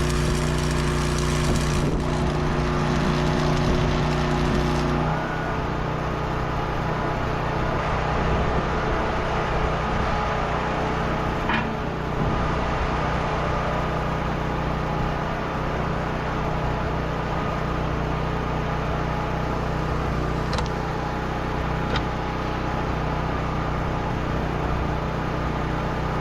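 An engine running at a steady speed, which steps down to a lower, quieter running speed about five seconds in. A few faint clicks come later.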